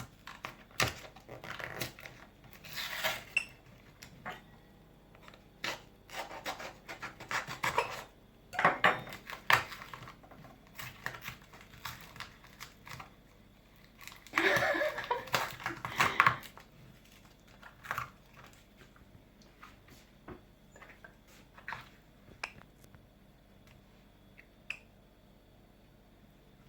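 Kitchen utensils and dishes clinking and clattering with some rubbing and rustling, a spoon and containers handled in irregular clusters while baking soda is measured out. The busiest clatter comes about halfway through, and it thins to a few light taps toward the end.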